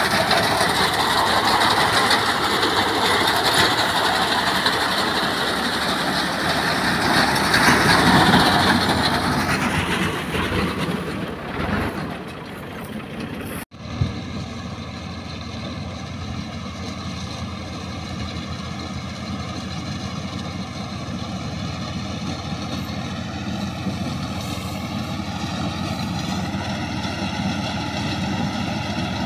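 Tractor engine running as a tractor-mounted Mughal Shabir reaper binder cuts standing wheat, loud and close at first and fading over about ten seconds. After a sudden break about 14 seconds in, the engine and machine go on steadier and quieter, heard from farther off.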